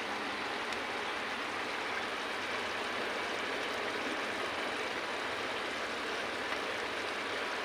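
Thick taro-stolon and shrimp curry bubbling in a pot as it cooks down, a steady even hiss.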